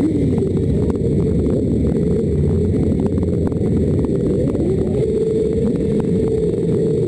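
Many motorcycle engines idling and revving together, pitches rising and falling over one another; from about five seconds in one engine is held at a steady higher pitch.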